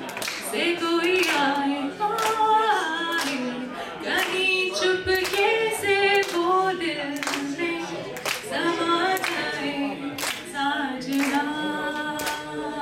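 A woman sings unaccompanied into a microphone while the audience claps along in a steady beat.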